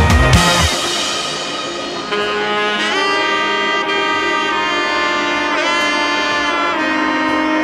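Background music: a drum-driven passage ends just under a second in, giving way to long held horn-like notes.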